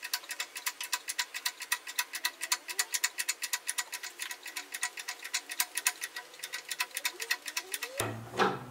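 Rapid, very even clicking, about six or seven clicks a second. It stops abruptly near the end, where a few louder knocks follow.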